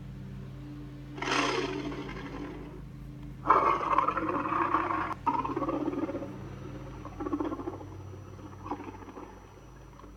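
Godzilla roar sound effects, mixed from the film series' roars: a roar about a second in, then a louder, longer roar that breaks off and resumes before trailing away into shorter growls, over a steady low hum.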